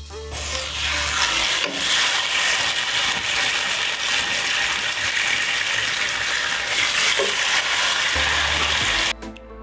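Food frying in a hot pan: a loud, steady sizzle that starts about half a second in and cuts off abruptly near the end.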